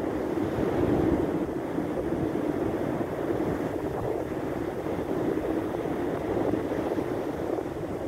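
Steady rush of sea surf breaking on the shore, mixed with wind rumbling on the microphone.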